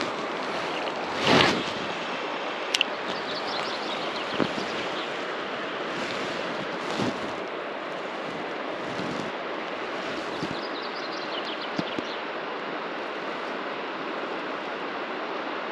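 River water running steadily over shallow riffles, a constant rushing hiss. A brief louder rustle comes about a second in, and a few faint clicks follow.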